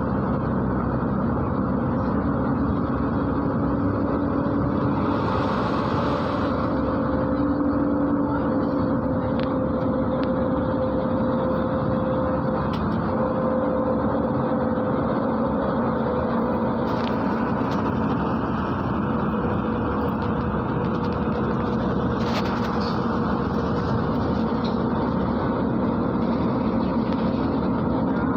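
MAZ-103 city bus heard from inside the cabin while under way: steady engine and road noise with a faint steady whine. A brief hiss comes about five seconds in.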